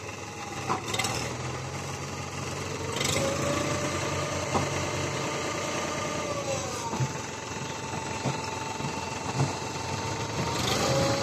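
Sonalika tractor's diesel engine running under hydraulic load while it tips a loaded trailer, with a whine that shifts in pitch a few times and a few sharp knocks.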